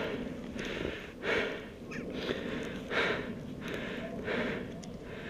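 A person breathing hard and fast, short audible breaths in and out coming roughly every three-quarters of a second: panting to catch breath after a sprint.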